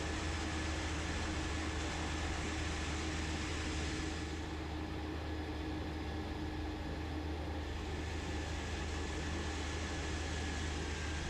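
Cessna 208B Grand Caravan's PT6A turboprop running steadily at low power while taxiing: an even drone with a strong low hum and a thin, steady high whine.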